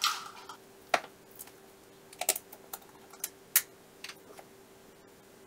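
Scattered sharp clicks and taps, about eight in all, from plastic measuring cups and a jar's screw lid being handled on a kitchen bench, with a faint steady hum underneath.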